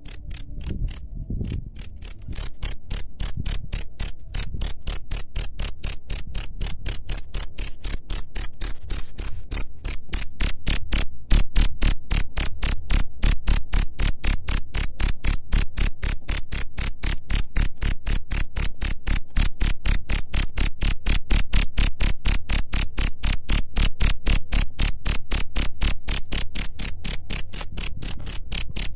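Cricket chirping in a steady, even rhythm of high-pitched chirps, about three or four a second, with a short break about a second in.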